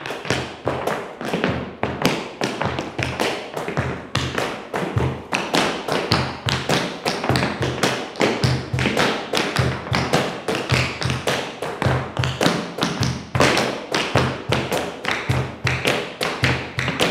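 Tap shoes striking a hard floor in a steady swung rhythm, the clicks of toe taps over regular lower heel thumps, with several dancers tapping the same groove together.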